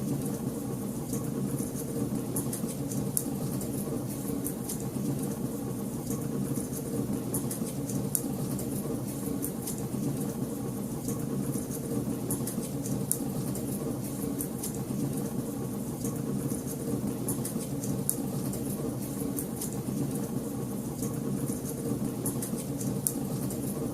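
Wood fire burning in a fireplace, crackling with many small quick pops over a steady low rumble of the flames.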